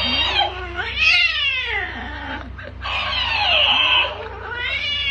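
A cat yowling in long, wavering calls that slide up and down in pitch, alternating with a plush talking-hamster toy replaying them in a higher, squeaky voice.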